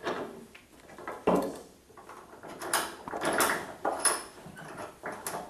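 A wood rasp being pushed along a wooden bow stave, several scraping strokes in a row at an uneven pace, taking excess wood off to rough the bow down to shape before tillering.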